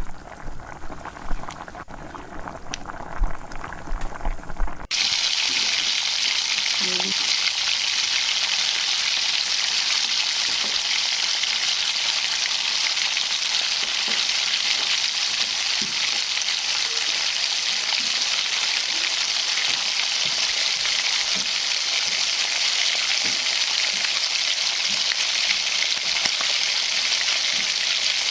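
Chicken pieces deep-frying in hot oil, a steady loud sizzle. It starts abruptly about five seconds in, after a few seconds of quieter, uneven knocking and bubbling.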